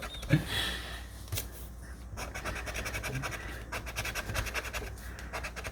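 Scratch-off lottery ticket being scratched: quick, even rubbing strokes, starting about a second and a half in.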